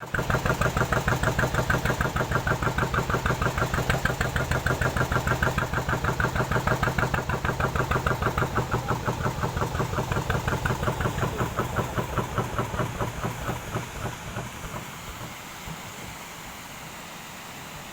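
Small boat engine running with a steady rapid putter, which dies down and fades out over the last few seconds.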